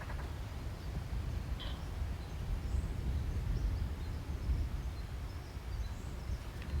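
Wind rumbling on the microphone with faint outdoor ambience, and one brief faint chirp about a second and a half in.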